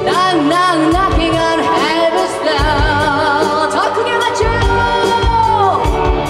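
Live rock band with a female lead singer: she sings an ornamented line with vibrato, then holds a long high note that drops away near the end, over drums and bass.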